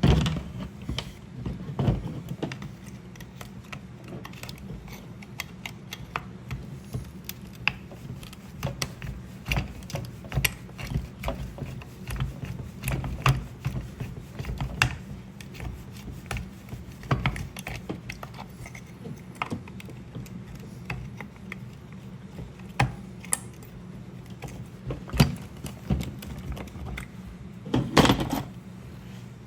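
Irregular light clicks and clacks of hand tools and small chainsaw parts being handled during disassembly, with a louder rattle near the start and again near the end, over a low steady hum.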